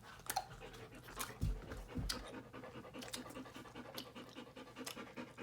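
Dog panting quickly and steadily, faint, with a few sharp clicks mixed in.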